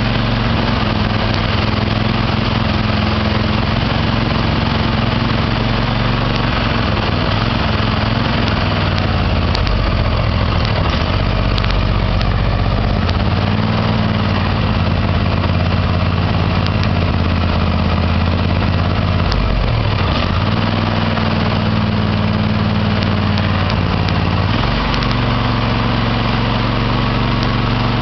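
Small riding-mower engine idling, its note sagging and then recovering a few times. This is the stumbling idle that a fuel pump and spark plug check have not cured, which the owner takes for a carburetor needing cleaning.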